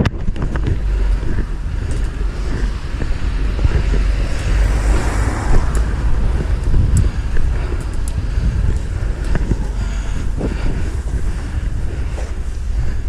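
Strong mountain wind buffeting the microphone: a loud, unsteady low rumble that swells with the gusts, with a few faint ticks over it.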